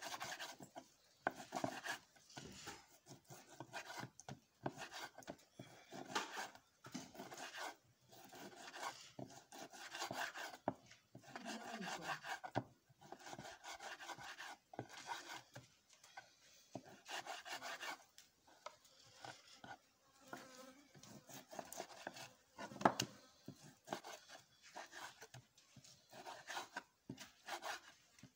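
A knife cutting raw beef into small pieces, in irregular rasping, scraping strokes with short pauses between them, and one sharper knock near the end.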